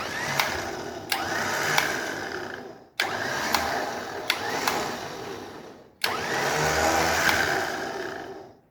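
Electric winch motor run three times, each run of about three seconds starting abruptly with a rising whine as it spins up and tailing off, with sharp clicks through it; the winch is paying out cable, working again after a bad battery terminal was cleaned.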